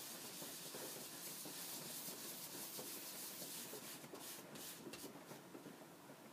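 Cloth rag rubbing carnauba-wax floor mastic into a thin sheet of wood veneer: a faint, steady scrubbing.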